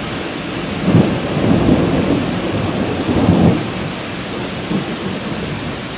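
Thunder rumbling over steady rain. The rumble swells about a second in and again around three seconds in.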